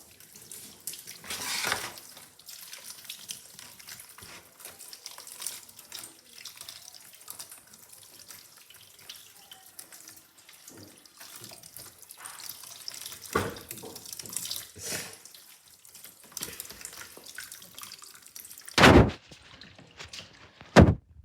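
Water splashing and running as stockfish is washed and soaked in hot water, with small clinks and knocks of handling throughout. Two loud thumps near the end.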